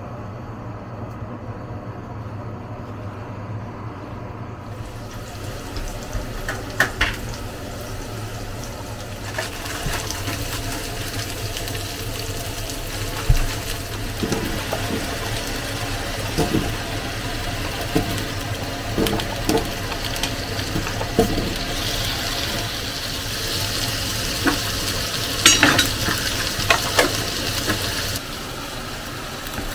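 Food sizzling in a hot frying pan. The sizzle starts about four seconds in and goes on steadily, with scattered clinks and knocks of a utensil against the pan.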